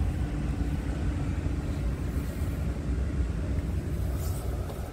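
Scania R truck's diesel engine idling, a steady low rumble heard inside the cab.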